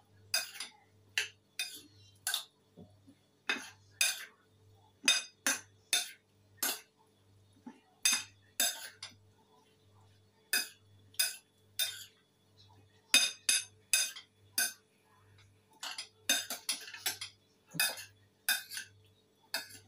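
Metal spoon clinking against a bowl as mango salad is tossed and mixed: irregular sharp taps, about one or two a second, coming in quick clusters at times.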